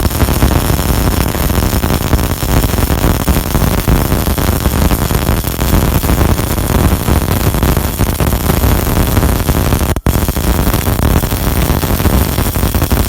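MIG welding arc from an HF350 MIG welder, crackling steadily as the wire feeds, with a brief break about ten seconds in before it starts again.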